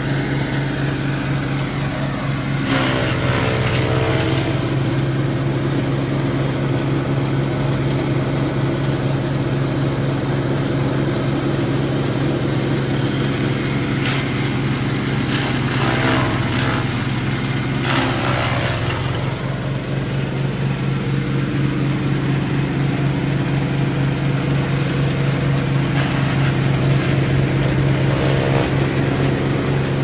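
Straw chaff cutter running with a steady motor hum while its blades chop green fodder stalks. The noise swells briefly about three seconds in, twice between sixteen and nineteen seconds, and again near the end.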